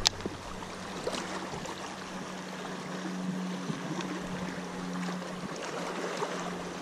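Small waves washing against shoreline rocks, with a sharp click just after the start and a steady low hum underneath.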